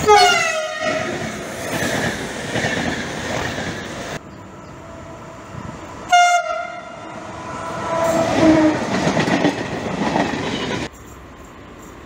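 Train horns from two passing trains. First, a CP Alfa Pendular (class 4000) electric tilting train sounds a short horn blast as it passes close, its pitch dropping slightly, followed by the rush and wheel noise of the train going by. A few seconds later, a CP 1400-class diesel locomotive gives a brief horn, followed by the rumble of its engine and wheels on the track.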